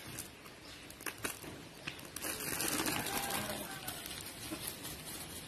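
A plastic bag crinkling and rustling in the hands, with a few light clicks in the first two seconds.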